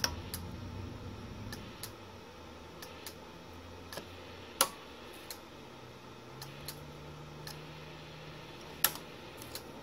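Sharp clicks of the Alpha 78 linear amplifier's front-panel switches being operated by hand. There are three louder clicks, at the start, about halfway and near the end, with a few lighter ticks between, over a faint low hum.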